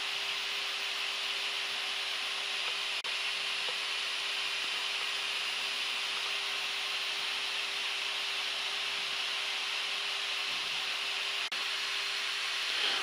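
Steady hiss of air rushing past a Gulfstream G-IV's cockpit in the climb, with a steady hum underneath. The sound dips for an instant twice.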